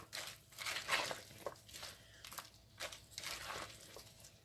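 Salad being stirred and tossed in a bowl: a run of irregular soft scraping and rustling strokes.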